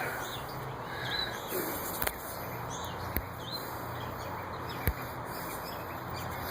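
Steady background noise with a low hum, a few short bird chirps and a few sharp clicks.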